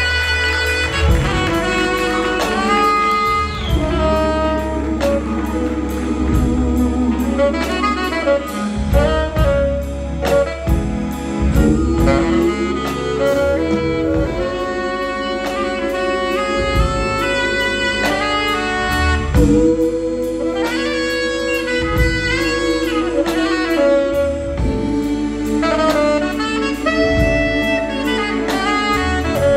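Live band playing: a saxophone carries the lead melody over drums, bass, electric guitar and keyboards.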